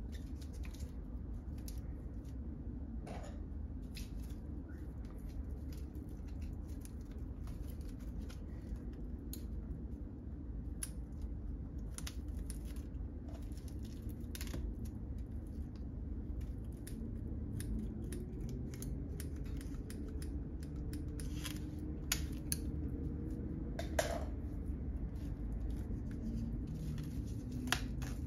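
Scissors snipping at an album's plastic shrink wrap, with the wrap crinkling and tearing as it is peeled off, and scattered clicks and taps of handling. A steady low hum runs underneath.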